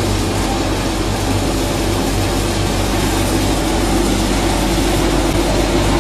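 Rotary drum hay and grass dryer running under test: a steady, loud mechanical drone with a low hum underneath.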